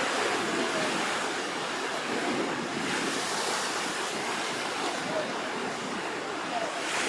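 Rough sea before a typhoon: surf breaking and washing in as a steady, continuous rush.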